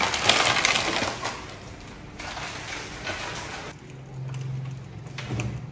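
Rustling and light clattering of things being handled, fading after about a second and a half, then quieter with a low steady hum for a moment near the end.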